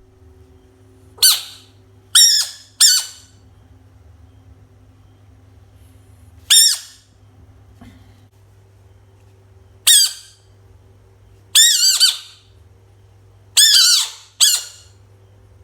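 A frog screaming: about eight short, high-pitched squeaky cries, some coming in quick pairs, over a steady low hum.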